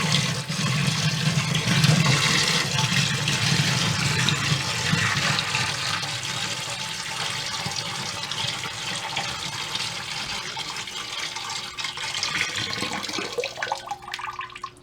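Water poured into a basement sump pit, splashing and rushing steadily, then tapering off and stopping near the end. The pit is being filled to lift the new sump pump's float, and the pump has not yet switched on.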